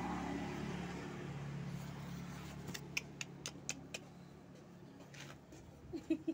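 Cat purring as it is petted, a low steady rumble that fades over the first few seconds. A quick run of about half a dozen sharp clicks comes about three seconds in.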